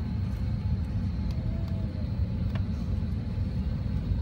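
Steady low rumble of an airliner's passenger cabin, with a single faint click about two and a half seconds in.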